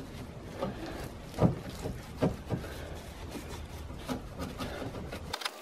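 A wet Scotch-Brite scouring sponge scrubbing a carbon-blackened car exhaust tip, the pad rubbing on the metal in uneven strokes.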